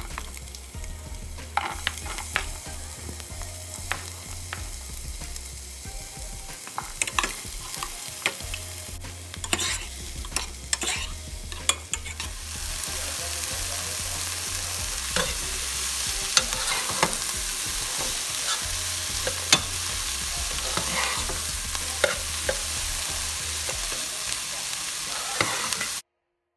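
Chopped onions, red pepper and broccoli frying and sizzling in a nonstick pot while a metal spoon stirs them, clicking and scraping against the pan. The sizzle grows louder and steadier about halfway through and cuts off suddenly near the end.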